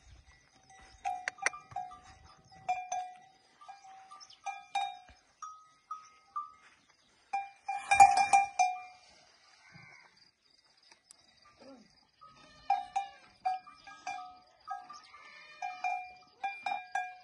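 A metal bell hanging from a camel's neck, clanking irregularly as the animal moves its head, each swing giving one ringing tone that dies away. The loudest cluster of clangs comes about eight seconds in.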